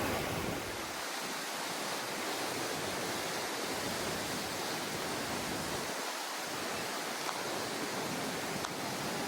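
Rushing water: a steady, even hiss of a fast-flowing creek or falls.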